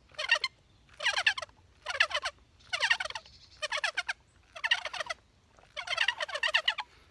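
Water being sucked through the mouthpiece of a LifeStraw filter water bottle: a run of short sputtering slurps, about one a second, the last one longer.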